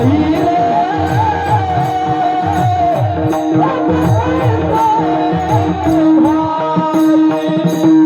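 Devotional kirtan singing: a man's voice holds long, gliding melodic phrases over a steady drone. Hand cymbals strike at a regular beat and drum strokes keep time throughout.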